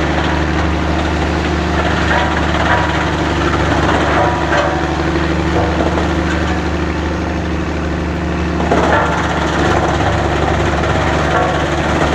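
Wood-crushing machinery of a sawdust production line running under load. A steady motor hum sits under dense, irregular crackling and snapping as wood is broken into chips and sawdust, with a sharper burst of cracking about nine seconds in.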